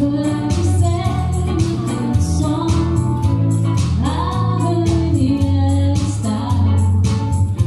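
A singer performing into a microphone over amplified backing music with a steady beat and a prominent bass line.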